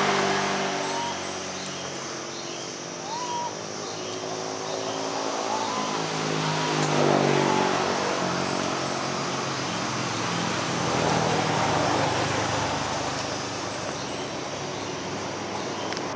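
Motor vehicle engines running and passing, their pitch rising and falling, loudest about seven seconds in and again near twelve seconds. A few short chirps sound over them in the first half.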